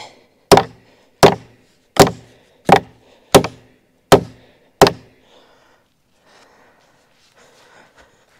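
Seven hard hammer strikes at a steady pace, a little over one a second, each with a brief ring, while a wooden field gate is being fitted to its hinges; faint rustling follows.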